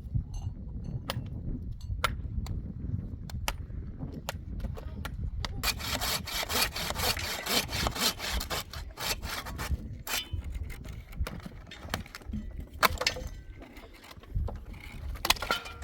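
Wood being worked by hand: rapid rasping strokes, densest from about six to nine seconds in, among scattered sharp clicks and knocks, over a low rumble.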